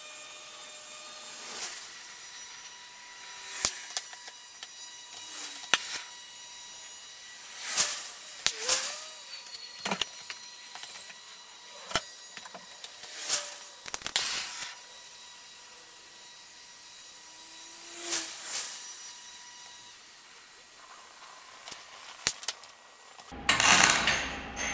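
Hand tools at work: scattered sharp knocks and clicks, with short rasping strokes, over a steady faint hum. A longer, louder rasping burst comes near the end.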